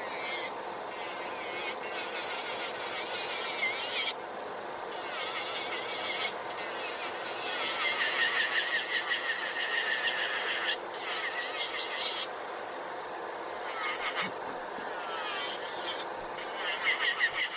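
Electric nail drill with a sanding band grinding down an artificial nail, in stretches of a few seconds that break off briefly each time the bit lifts off the nail, with a faint squeal from the bit at times. A steady motor hum runs underneath.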